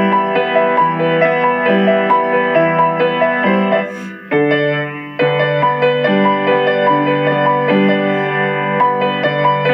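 Keyboard music: piano-like chords of held notes, pausing briefly about four seconds in and again just after five seconds.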